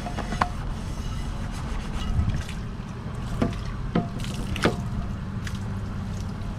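Water trickling and dripping, with a few short sharp ticks, over a low steady hum.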